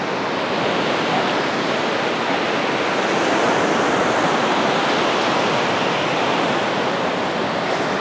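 Choppy storm surf breaking and washing onto a sandy beach: a steady rush of waves that swells slightly in the middle.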